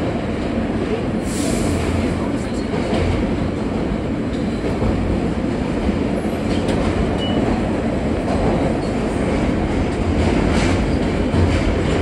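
R160 subway car running along the track: a steady rumble and rattle of wheels and car body.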